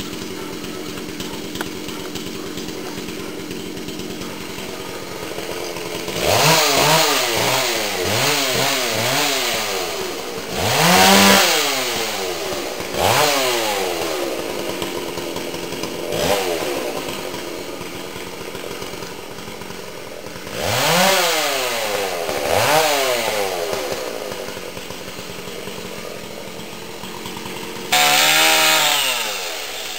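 Chainsaw idling steadily, then revved hard about eight times in short bursts for cutting, its pitch shooting up and sinking back after each one; it shuts off just before the end.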